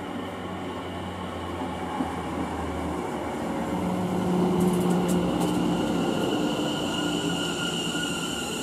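Greater Anglia Class 720 Aventra electric train pulling into the platform and slowing, a steady rumble of wheels on rail with a thin high whine over it. It grows louder as the cab comes alongside, peaking about halfway through.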